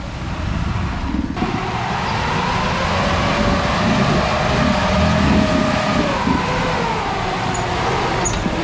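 An off-road 4x4's engine working under load as it crawls through rocky ruts on a steep trail, with a whining note that rises and then falls near the end.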